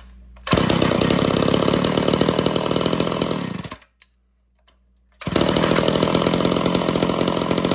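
Homelite Super XL two-stroke chainsaw engine running loud for about three seconds and cutting off abruptly, then running again for about three seconds and cutting off again. The stops come from the saw's kill switch, which is working.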